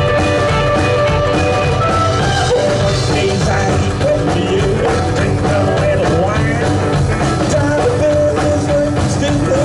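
A rock band playing live, with a voice singing over the band.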